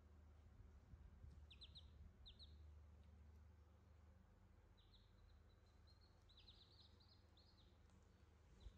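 Newborn chicks peeping faintly in short, high cheeps that fall in pitch. A few come about one and a half seconds in, and a quicker run follows from about five to seven and a half seconds in.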